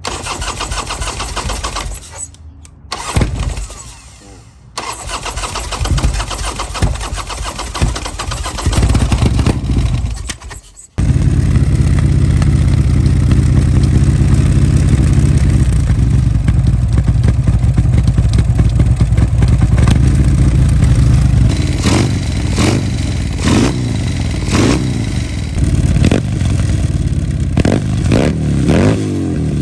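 Buell Lightning's Harley-Davidson Sportster-based air-cooled V-twin being started for the first time after a rear head-gasket replacement: it stumbles in several short tries, then about eleven seconds in runs loud and steady. In the last several seconds the throttle is blipped repeatedly, in short revs.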